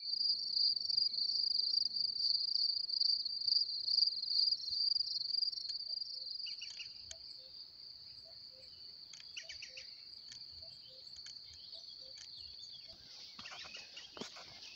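Crickets trilling in a high, pulsing chorus, loudest for the first few seconds and then fading to a softer level. Near the end, footsteps crunch on a stony dirt trail.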